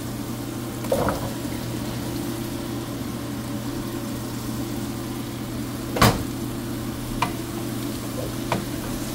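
Diced turnips tipped from a colander into a nonstick pan of frying masala, with a few knocks of the spatula and cubes against the pan, the loudest about six seconds in. A steady low machine hum and a faint sizzle run underneath.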